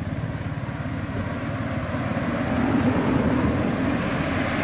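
Road traffic noise: a motor vehicle running nearby, the sound swelling a little through the middle and then holding steady.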